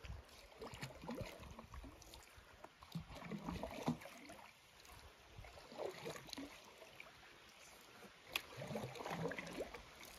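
Canoe paddles dipping and pulling through calm water, a soft stroke every couple of seconds with gurgles and drips from the blades, and one light knock near the end.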